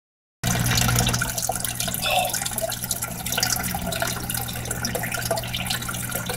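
Water splashing and trickling into an aquaponics fish tank, the inflow churning the surface, with a steady low hum underneath. It starts suddenly about half a second in.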